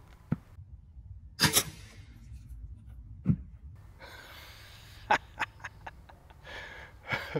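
A short sharp knock of a crossbow bolt striking a coconut, then a man's loud excited exclamation and breathy laughter.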